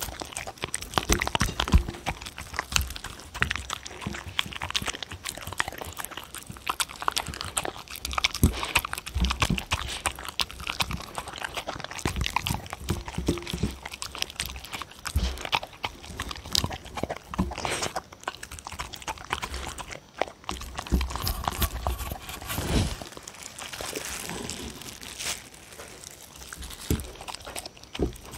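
A dog eating soft food from a bowl close to a microphone: continuous wet licking and chewing, with many small clicks and smacks.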